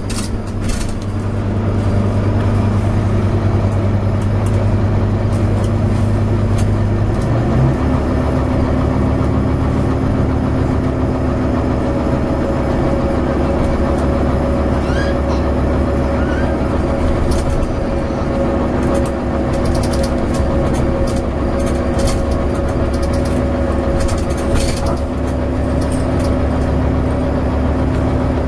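Volvo B9TL double-decker bus heard from on board, its diesel engine running steadily with a steady droning tone. The engine note shifts once, about seven seconds in, and light rattles and clicks come and go over it.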